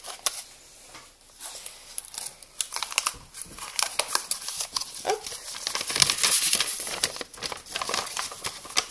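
Paper rustling and crinkling as a rolled-up paper sheet is handled and unrolled by hand, a dense run of small crackles that is loudest about six seconds in.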